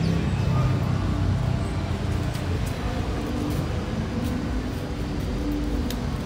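City street traffic noise: a steady low rumble of passing vehicles, with a few faint ticks on top.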